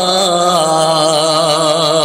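Male voices of a devotional Urdu naat holding one long sung note that wavers slightly in pitch.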